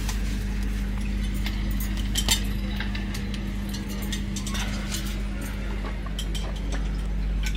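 Steady low hum inside an air-conditioned sleeper train coach standing at a station, with scattered light clinks and clicks.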